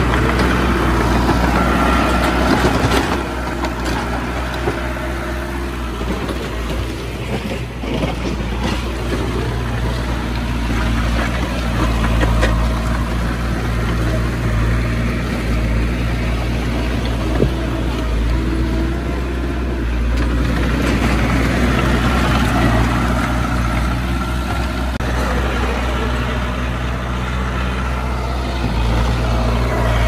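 Heavy diesel engine of earthmoving machinery running continuously, its loudness dropping a little about three seconds in and then shifting gently.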